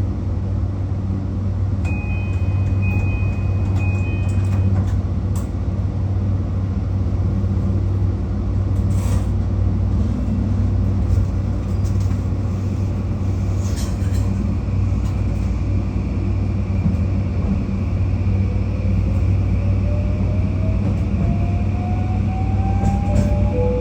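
JR Kyushu 821 series electric train running, heard from the cab: a steady low hum with wheel and track noise. A short run of high beeps sounds a couple of seconds in, and from about 18 s in a whine rises steadily in pitch.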